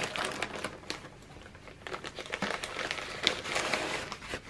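Clear plastic packaging crinkling and crackling as a sheet of handmade paper is drawn out of it. The crinkling is busiest at the start and again in the last couple of seconds, with one sharp crackle near the end.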